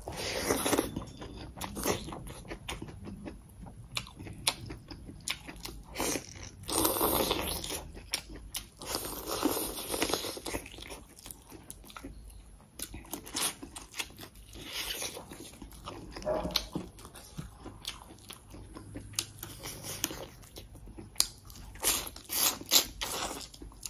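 Close-up eating sounds: biting into and chewing mouthfuls of rice and bone-in chicken eaten by hand. The chewing comes in bursts of clicks and crunches every few seconds, with quieter pauses between.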